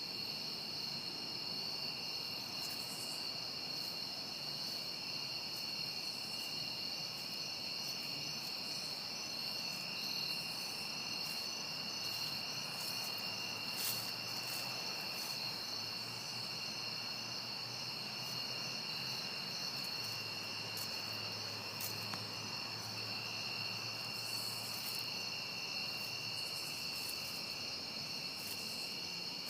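Early-autumn evening chorus of crickets and other singing insects: several steady, continuous high-pitched trills at different pitches overlapping without a break.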